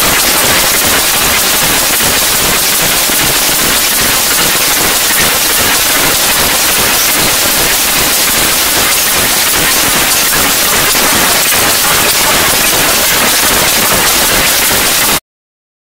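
Loud, steady hiss like static or white noise, strongest in the high end, with no tune or beat; it cuts off suddenly near the end.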